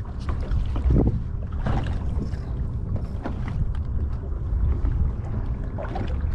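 Wind buffeting the microphone as a steady, uneven rumble, with a few short knocks and rustles of handling.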